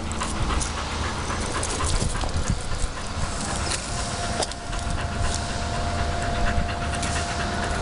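A dog panting steadily through its open mouth, with rustling and clicking from a hand scratching its fur close to the microphone, over a low rumble.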